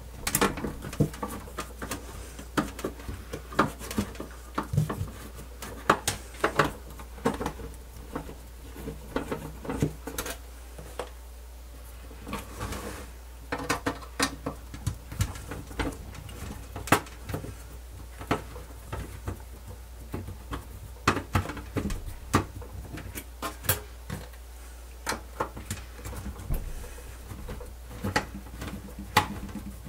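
Screwdriver and metal cassette-deck chassis: irregular sharp clicks and knocks as screws are worked out and the casing is handled, over a steady low hum.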